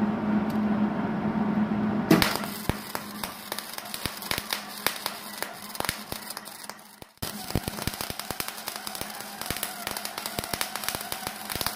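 MIG welding arc on aluminum, with argon shielding gas and aluminum wire run through a regular Hobart MIG gun without a spool gun. The arc strikes about two seconds in and crackles and spatters irregularly, breaks off briefly around seven seconds, then strikes again and keeps crackling. A steady hum is heard before the arc strikes.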